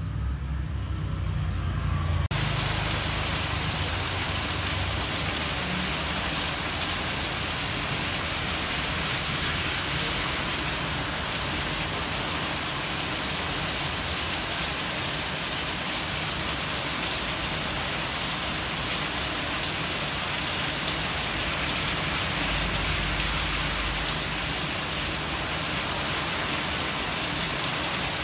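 A steady, even hiss like heavy rain, cutting in abruptly about two seconds in and holding level; before it, a low hum.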